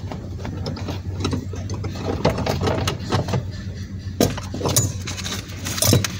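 Ratchet wrench clicking as the 10 mm bolt holding the fuse box housing is undone, with scattered metallic clinks, a few louder ones in the second half, over a steady low hum.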